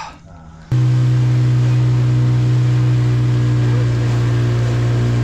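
An engine running at a steady speed, loud and close, cutting in abruptly about a second in and holding an even pitch throughout.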